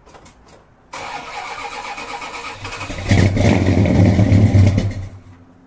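1969 Dodge Charger R/T's 440 V8 cold-starting: a few light clicks, then the starter cranks from about a second in, and the engine fires about three seconds in with a loud burst of revs. The sound drops away abruptly near the end.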